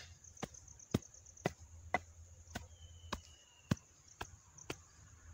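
Metal blade of a hand digging tool chopping into dry soil, sharp knocks at about two strikes a second, the loudest right at the start. Insects chirr steadily behind it.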